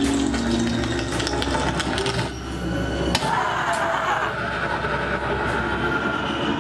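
Rapid clattering knocks and rattles, a sharp crack about three seconds in, then a long, shrill, hissing shriek from a scare actor right at the microphone.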